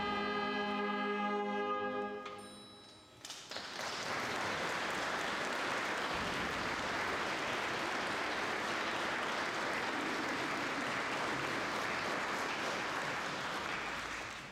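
A wind band's final held chord dies away, and about three seconds in the audience breaks into steady applause that runs on until it fades near the end.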